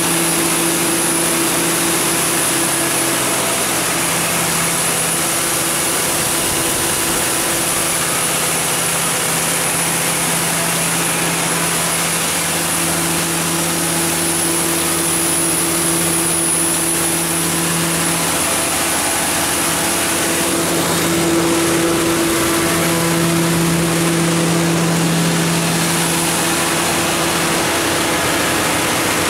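Cummins GTA19-G2 natural gas engine, a turbocharged 19-litre inline six, running steadily in a 350 kW generator set. It is a loud, even running noise with a low hum that fades in and out.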